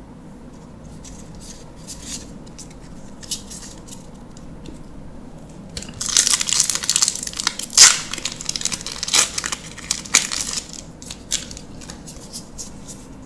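Plastic foil wrapper of a Magic: The Gathering booster pack being torn open and crinkled, a loud crackling that starts about six seconds in and lasts about four seconds. Before it come faint clicks and rustles of trading cards being handled.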